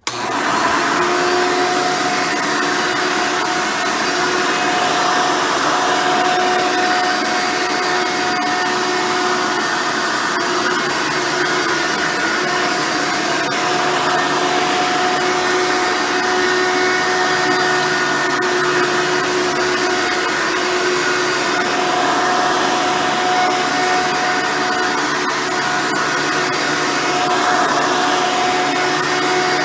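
Hoover Soft & Light Supreme upright vacuum, with its 7-amp motor and 7-bladed fan, switched on at the start and then running steadily with a constant whine.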